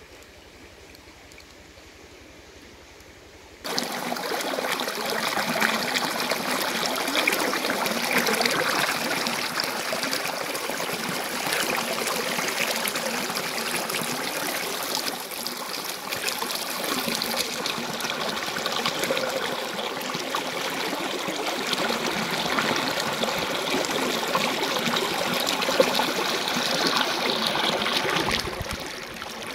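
A shallow rocky stream rippling and rushing over stones, a steady water sound that starts suddenly about four seconds in after a few quiet seconds. It dips briefly near the end.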